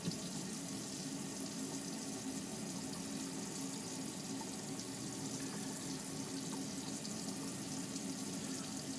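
Hot water running steadily from a camper faucet into the sink, an even hiss with a steady low hum beneath it, during a continuous hot-water draw from the Alde water heater.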